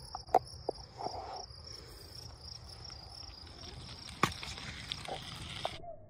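Night insects chirping steadily in a high pitch, with a few sharp clicks; the chirping cuts off suddenly near the end.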